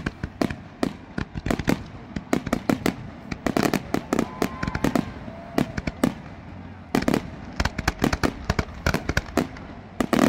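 Fireworks display: a rapid, irregular run of sharp bangs and crackles from aerial shells bursting, coming thickest in two dense clusters around four and eight seconds in.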